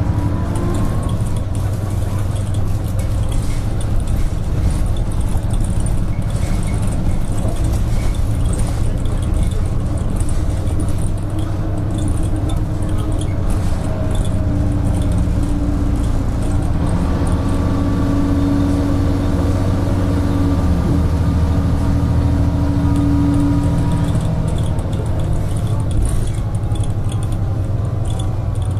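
Inside a moving Ikarus-bodied DAF single-deck bus: a steady diesel engine drone with a whine that rises and falls with the bus's speed. The whine is strongest through the middle stretch. Light rattles from the bus body run under it.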